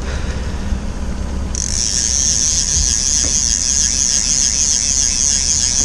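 Fishing reel clicking in a fast, steady ratchet while a fish is played on a bent rod. It gets much louder about a second and a half in, over a low steady rumble.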